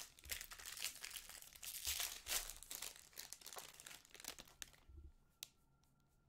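Foil wrapper of a 2020 Bowman Draft Jumbo baseball card pack crinkling and crumpling as it is opened by hand, a dense crackle for about four and a half seconds. It then goes quieter, with a few light clicks as the stack of cards is handled.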